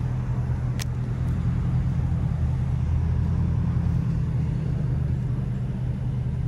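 A steady, low mechanical hum, like a motor or engine running, with one sharp click about a second in.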